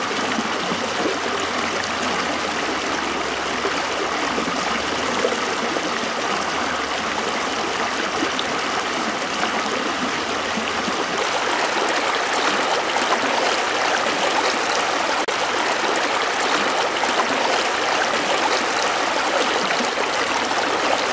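Steady rushing of a shallow river running over rock ledges.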